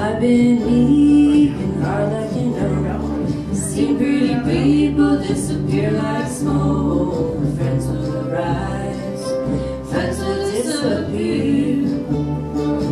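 Live acoustic band music: plucked upright bass under a sung melody.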